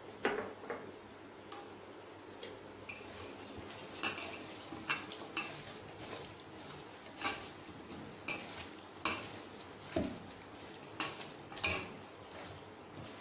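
Raw chicken pieces being mixed by hand with spices in a stainless-steel bowl to marinate them. Irregular metallic clinks and knocks come about once a second as the hand works the pieces and the bowl shifts.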